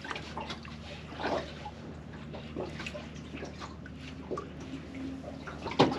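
Water lapping and splashing against the side of a small boat in irregular little slaps, over a faint steady low hum.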